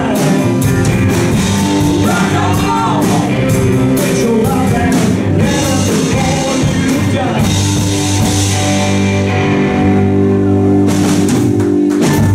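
Live rock band playing: electric guitars, bass guitar and drum kit, with a man singing over the first half. In the second half the band holds long notes with a run of drum hits just before the end.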